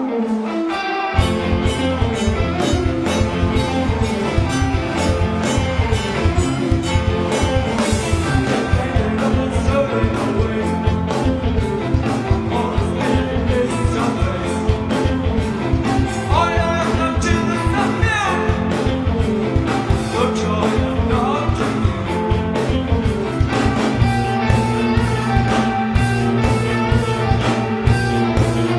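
Rock music: a full band with drums comes in about a second in over a sustained string-like opening and plays on steadily.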